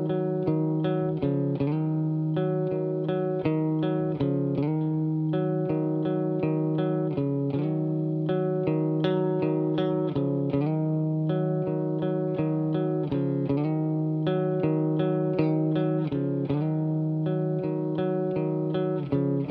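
Guitar music: notes picked in a quick, even rhythm over a held low note.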